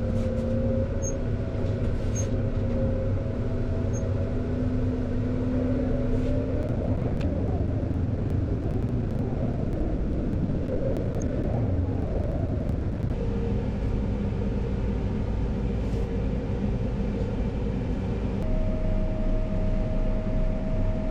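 Farm tractor engine running steadily under load, its pitch changing a few times. The sound turns rougher and noisier for several seconds in the middle.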